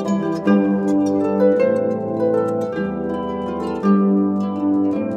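Harp music: plucked notes and chords ringing and overlapping in a gentle, flowing line.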